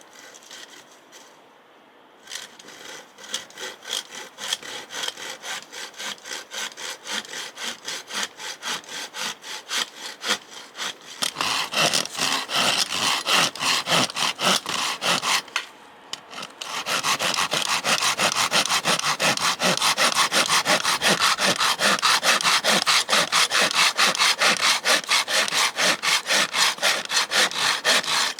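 Hand saw cutting through wood with quick, regular back-and-forth strokes. It starts light, gets louder about a third of the way in, stops briefly just past halfway, then resumes with steady strokes.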